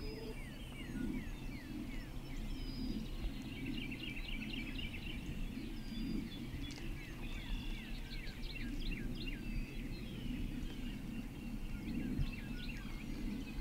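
Spring woodland ambience: many songbirds chirping with short, quick down-slurred notes, over a faint steady low rumble.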